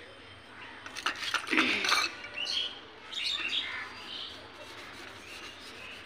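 Toothbrush clicking and scraping against a steel bowl and the mixer-grinder jar while detergent is worked onto it, loudest about a second in. Birds chirp a few times in the background.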